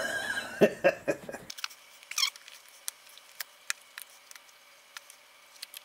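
Screwdrivers prying an air-tyre off an e-scooter wheel rim: scraping and handling for the first second or so, then scattered sharp clicks of metal on the rim, with a short falling rubber squeak about two seconds in.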